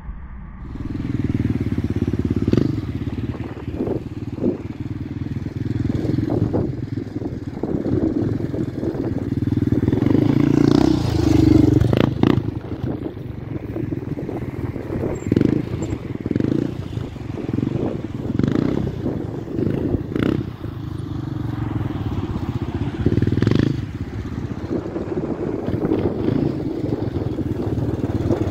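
Dual-sport motorcycle engines running and revving up and down as the bikes ride over rough dirt ground, with scattered sharp clicks and knocks.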